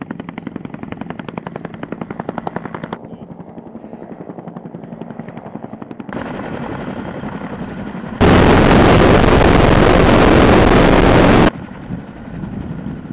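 Military helicopters in flight: an Agusta-Bell 205's rotor blades beating fast and evenly. After a cut there is a much louder, even rushing noise from about eight seconds in, which stops abruptly about three seconds later.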